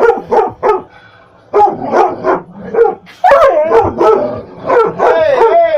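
A dog barking repeatedly in short loud barks, with a brief pause about a second in. Near the end the barks run together into a drawn-out, wavering howl-like cry.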